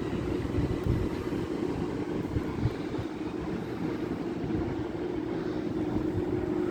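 Class 395 Javelin electric multiple unit running past on the platform road, a steady rumble with a continuous hum.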